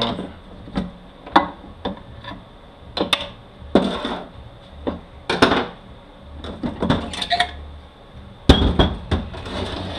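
Irregular sharp metal knocks and clanks from a Honda MRVA automatic transaxle's case being pried loose with a long screwdriver and lifted off the gear train. The loudest clank comes near the end, as the case half comes away.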